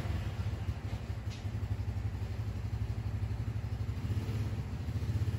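An engine idling: a steady, low, rapidly pulsing throb.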